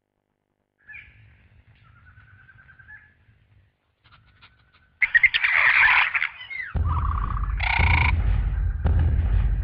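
Dinosaur sound effects: faint raptor chirps and trills, then a loud high shriek about five seconds in, followed by a deep, heavy rumble with more squawking calls over it.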